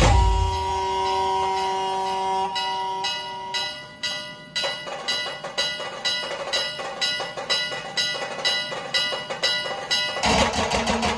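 A long held note on a blown horn for the first few seconds, then a bell struck in a steady rhythm about twice a second, ringing between strokes. Drums come back in loudly near the end.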